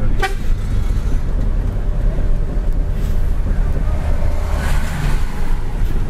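Mitsubishi Fuso truck's diesel engine and road noise heard inside the cab while driving, a steady low rumble. A vehicle horn toots briefly just after the start, with a fainter toot about five seconds in.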